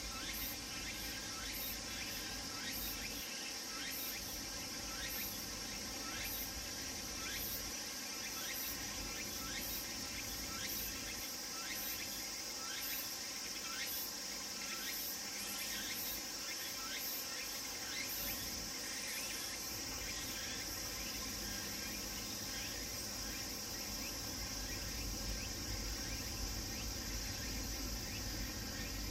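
Cicadas singing: a steady high shrill chorus with a fast, repeating pulsed call over it, including tsukutsukuboshi (Meimuna opalifera), the cicada of late summer.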